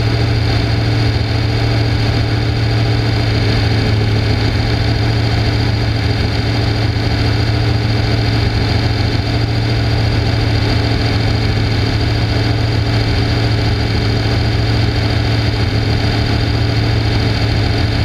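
Off-road race car's engine idling steadily with a constant low hum while the car sits stopped.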